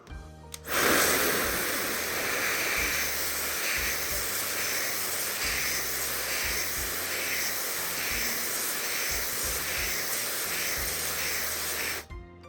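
A loud, steady hiss of rushing air, starting abruptly about a second in and cutting off suddenly near the end, with soft background music underneath.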